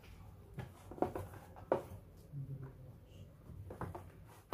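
Hands pulling and patting a sheet of dough on a floured marble worktop: soft rubbing and scraping with a few light taps, the two sharpest about a second in and just under two seconds in.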